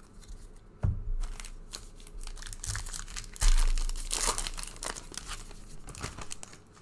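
A shiny trading-card pack wrapper crinkling and tearing as it is ripped open by hand, with two low thumps of handling, about a second in and, loudest, about three and a half seconds in.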